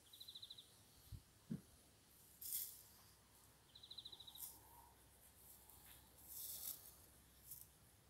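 Near silence outdoors, broken by a faint, high, rapid trill heard twice and by a few soft knocks and short scraping rustles from handling a wooden beehive.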